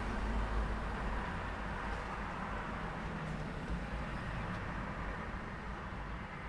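Street traffic at an intersection: a continuous rumble and tyre noise from passing cars and trucks, easing off slightly toward the end.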